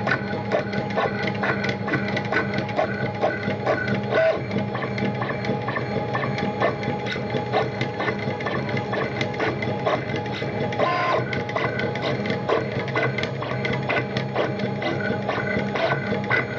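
Stepper motors of a 3D printer with a syringe icing extruder whirring in short, rapid start-stop moves, several a second, as the head punches down and extrudes.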